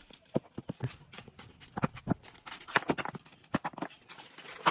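Hand tools at work on a road repair: about ten irregular, sharp knocks and scrapes, with no steady rhythm.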